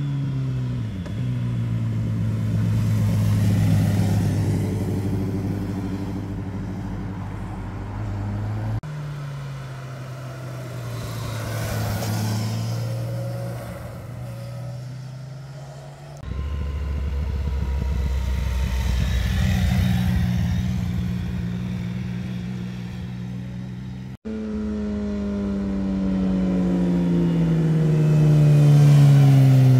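Sport motorcycles passing one after another through tight bends, their engine notes rising and falling, with three abrupt cuts from one bike to the next. The loudest is a sport bike near the end, coming close with its engine pitch falling.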